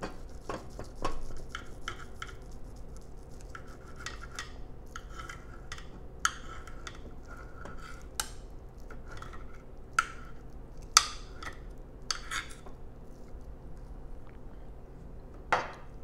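Knife and fork scraping and clinking against a plate as a steak is cut, with several sharper clinks scattered through.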